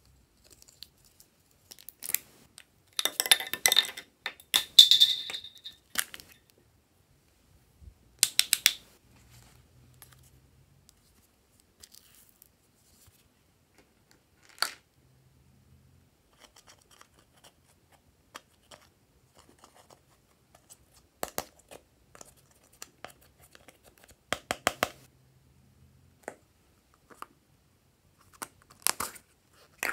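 Small plastic containers being handled and opened by hand: clicks and scraping in short bursts, loudest in a cluster a few seconds in, then scattered single clicks and taps.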